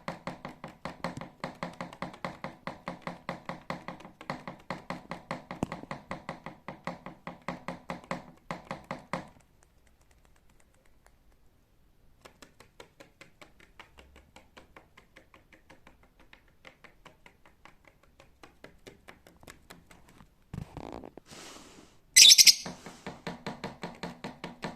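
Lovebird pecking rapidly with its beak, about five sharp taps a second, going quiet after about nine seconds and pecking more softly after that. A short, loud, shrill lovebird call breaks out near the end.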